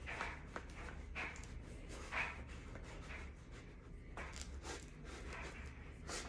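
Faint, irregular scraping as a cake-loosening tool is worked around the center post and base of a tube cake pan, cutting the angel food cake free.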